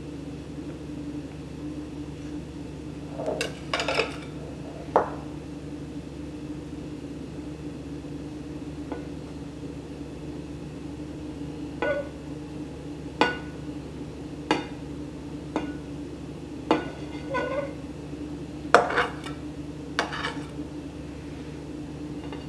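Metal icing knife spreading cream cheese frosting on the sides of a cake, with about a dozen light clinks and scrapes against the ceramic cake plate, irregularly spaced and quiet for a few seconds in the middle. A steady low hum runs underneath.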